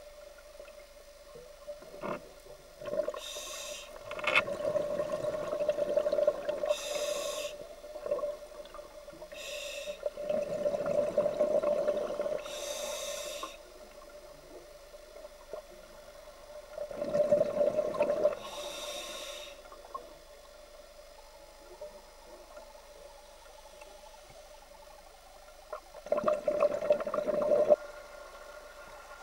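A scuba diver breathing underwater through a regulator: a short hiss on each inhalation, then a long gurgling rush of exhaled bubbles lasting a second or more, four times over. A steady hum runs underneath.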